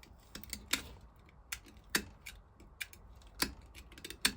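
Irregular sharp metallic clicks and light scrapes from a metal tool picking at rust and old gasket in a stuck part of a Lister vaporiser casting, about one or two clicks a second.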